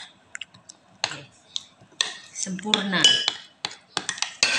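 Metal spoon clinking and scraping against the sides and bottom of a small container as it stirs a thick paste of cornstarch and cooking oil, in irregular short taps.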